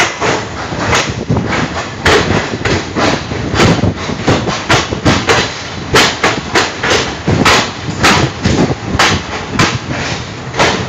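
Wheels of a passing express train's coaches running through at speed, clattering over rail joints and points in a fast, uneven run of loud knocks, about two to three a second, over a steady rumble.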